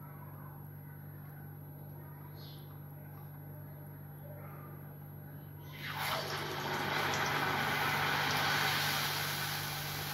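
A dahi vada of ground urad dal batter is dropped into hot oil in a kadai and starts sizzling loudly and steadily about six seconds in as it deep-fries. Before that there is only a faint steady hum.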